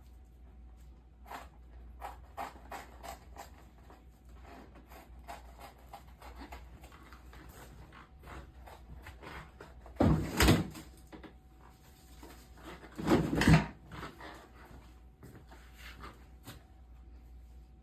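Scissors cutting out a hair-system template: a run of small snips and clicks, with two louder rustling noises about ten and thirteen seconds in.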